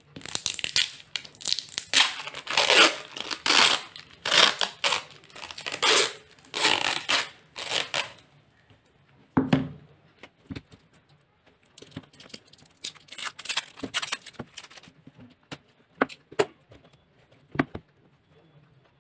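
Plastic seal being torn off a plastic tub of wall putty: a rapid run of rough ripping strokes for about eight seconds. After that, only scattered clicks and knocks as the plastic tub and its lid are handled and pried at.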